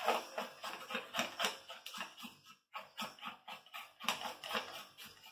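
Plastic bowl scraper scraping sticky bread dough off the inside of a mixing bowl in short repeated strokes, about three a second, with a brief pause about two and a half seconds in.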